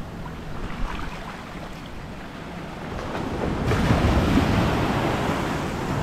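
Ocean surf washing on the beach, swelling louder a little past halfway, with wind buffeting the microphone.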